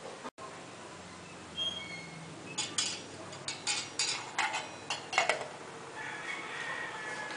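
Metal lid clinking and clattering as it is fitted onto a stainless steel cooking pot: about ten sharp metallic clinks in quick succession over two and a half seconds.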